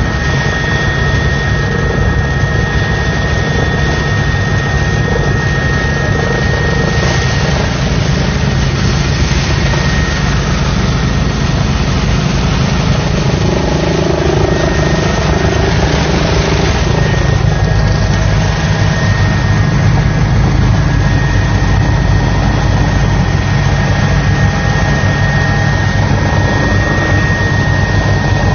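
Helicopter cabin noise: a steady engine and rotor drone with a constant high whine, heard from inside the aircraft.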